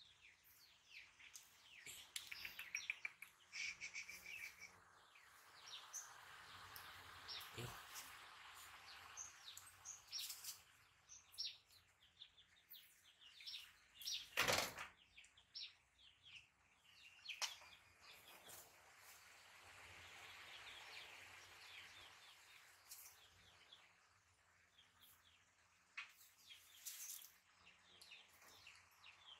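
Faint, scattered chirps of small birds over near-silent background, with one sharp knock about halfway through.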